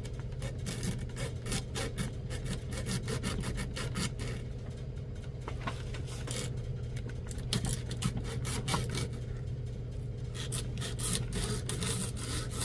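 A hand cutting tool rasping back and forth across a small copper pipe held in a vise, in quick repeated strokes, over a steady low hum.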